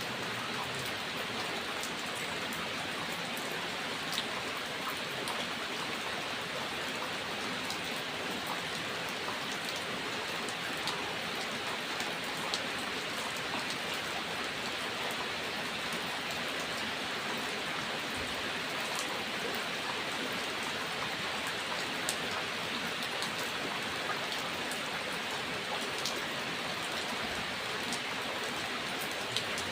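Steady rain falling, an even hiss with individual raindrops ticking sharply on a hard surface every second or so.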